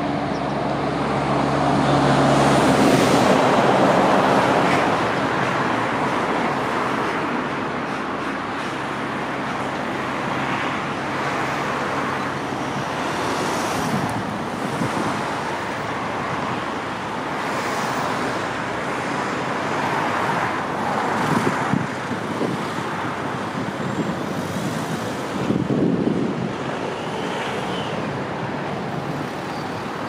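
Steady road traffic noise with a vehicle engine hum, loudest a few seconds in, and cars swelling past now and then.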